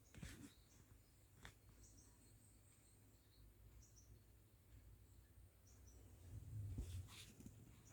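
Near silence: faint background with scattered short, high chirps and a few soft clicks.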